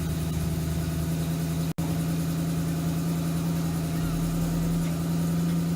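Ford Mustang engine idling steadily after being started. The sound cuts out for an instant a little under two seconds in.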